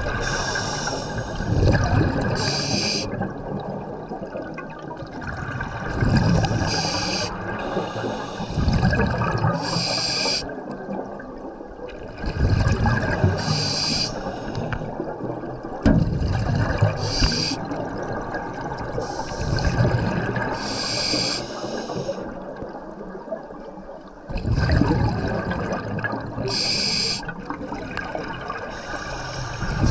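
Scuba divers breathing through demand regulators, heard underwater: a short hiss on each inhale, then a rumbling gurgle of exhaust bubbles on each exhale, repeating every few seconds.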